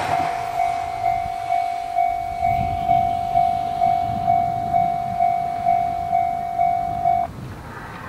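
Japanese level-crossing electronic warning bell ringing: a steady tone struck in a regular ding-ding rhythm, about two strokes a second, which cuts off suddenly about seven seconds in as the crossing's warning ends once the train has cleared. The passing train's rumble fades away at the very start.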